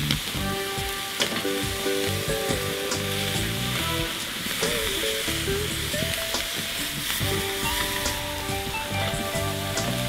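Chicken thighs sizzling on the grate of a charcoal kettle grill, searing directly over the hot coals, with a few light clicks as metal tongs move the pieces. Background music plays over the sizzle.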